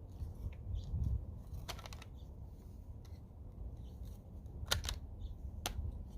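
Sharp plastic clicks and handling noises as the parts of a car side-mirror turn-signal housing are fitted back together: a short cluster about two seconds in, then single clicks near the end, over a steady low rumble.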